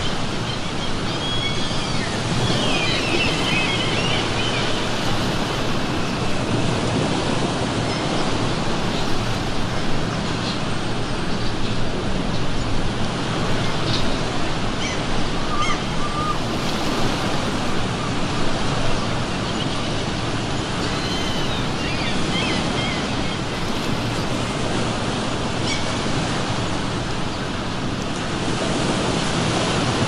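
Ocean surf washing steadily onto the shore, with gulls calling several times.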